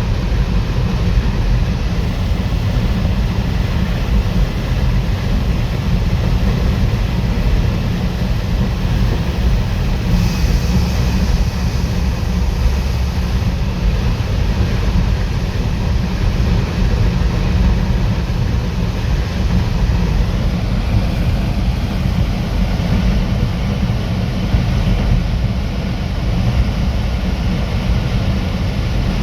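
ZIL truck's carburetted petrol engine and drivetrain running steadily under way, a deep continuous drone with road noise. A higher hiss comes in briefly about ten seconds in.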